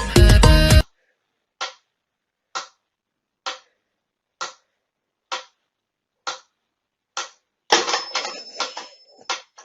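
Loud music cuts off about a second in. Seven short, sharp ticks follow at an even pace of roughly one a second. A brief patch of irregular rustling and clattering comes near the end.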